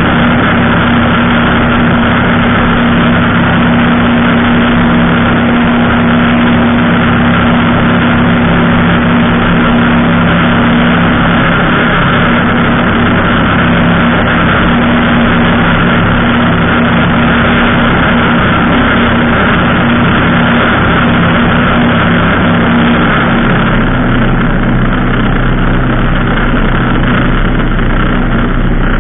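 Ultralight aircraft's engine and propeller droning steadily in flight, mixed with wind rushing past the wing-mounted camera. The sound deepens somewhat near the end.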